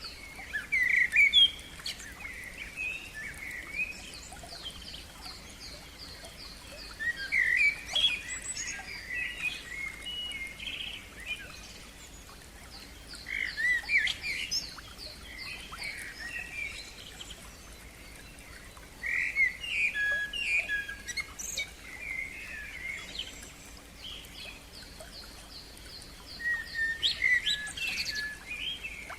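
A songbird singing separate phrases of varied, rapid notes, each about two to three seconds long, with pauses of a few seconds between them. In the pauses a fast, even series of high, thin notes repeats.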